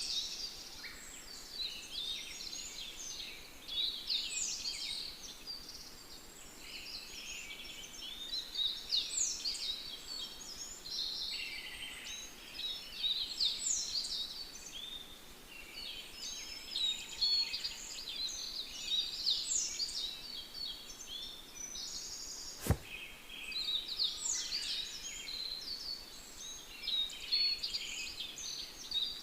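Several songbirds singing together: a busy, overlapping run of chirps and quick falling whistles. A single sharp click comes about two-thirds of the way through.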